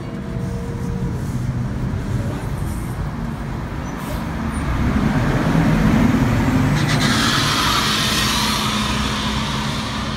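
City bus running close by, its engine rumble swelling to a peak about six seconds in, then a long hiss of air starting about a second later and lasting about three seconds, with a faint high whine over it.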